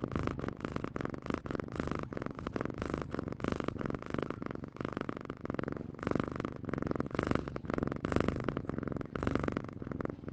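A domestic cat purring close up: a rapid, steady pulsed rumble that swells and eases with its breaths.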